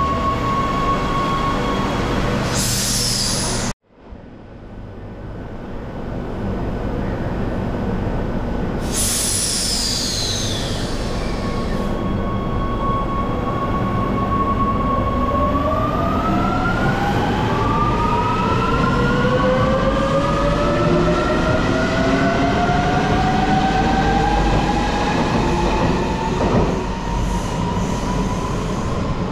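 Rome Metro Line A train pulling out of an underground station. Its electric motor whine holds steady, then from about halfway through rises in pitch in several tones together as the train accelerates away, over a constant low rumble. Two short high falling squeals come near the start and about nine seconds in, and the sound cuts out abruptly for a moment just before four seconds in.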